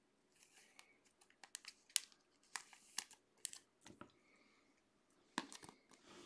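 Faint crinkling and small scattered clicks of a trading card in a clear plastic sleeve being handled between the fingers.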